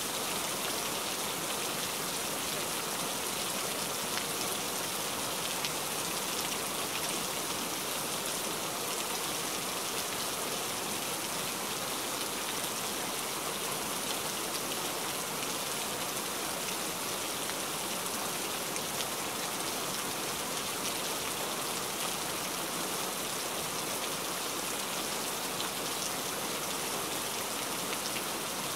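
Steady rain falling: an even hiss, strongest in the high range, speckled with many fine drop ticks.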